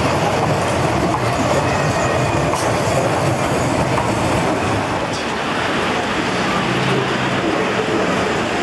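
A Bern street tram running past at close range on street track: a steady rumble of wheels on the rails and running gear, with no sharp knocks or squeals standing out.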